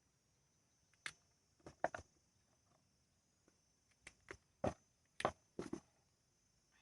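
About ten short scrapes and knocks of soil and sweet potato tubers being handled during digging, a few between one and two seconds in and a quicker run from about four seconds in.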